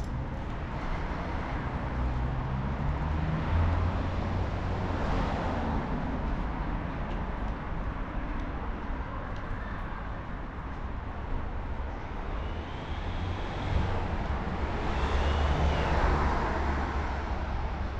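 City street traffic: a steady low engine rumble and tyre noise, swelling as vehicles pass about five seconds in and again near the end.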